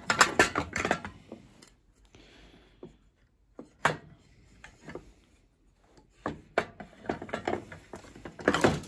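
Clicks, knocks and rubbing as the metal parts and wiring of a toasted sandwich maker are handled and fitted together during reassembly. A lone sharp click comes about four seconds in, after a quiet pause, and the clicking grows busier again over the last few seconds.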